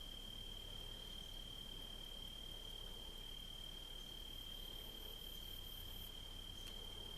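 Crickets singing: one steady, unbroken high-pitched trill over faint outdoor hiss.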